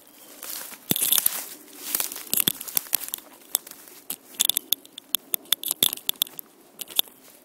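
Footsteps crunching through dry leaf litter, twigs and ferns on a woodland floor, heard as a run of irregular crackles and snaps.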